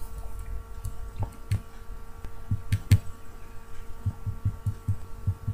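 Computer mouse clicking: about a dozen short, dull clicks in uneven clusters, over a faint steady hum.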